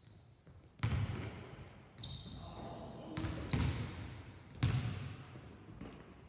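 Basketballs bouncing on a sports hall floor, several irregular hits that echo through the hall, with high squeaks of sneakers on the court.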